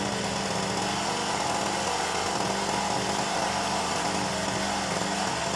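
3000-watt portable gasoline generator's small engine running steadily just after starting.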